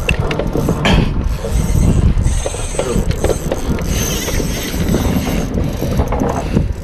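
Baitcasting fishing reel working as a hooked fish pulls on the bent rod, a mechanical ratcheting sound over a steady low rumble.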